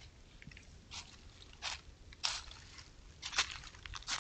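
Irregular crunches from white-tailed deer close to the trail camera, about one a second, loudest a little past the middle.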